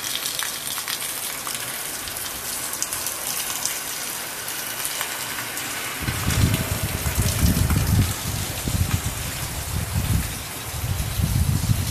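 Heavy rain pouring down, with water gushing off a roof edge in a steady stream close by. From about six seconds in, deep irregular rumbles join the steady hiss of the rain.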